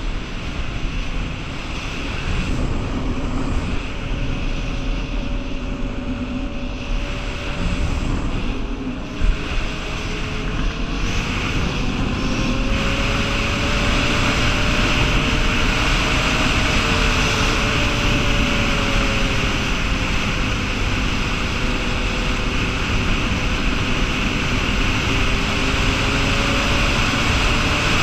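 Honda 420 ATV's single-cylinder four-stroke engine running at speed, its pitch rising and falling with the throttle, with wind rushing over the microphone. It gets louder about halfway through, and there is one brief knock about a third of the way in.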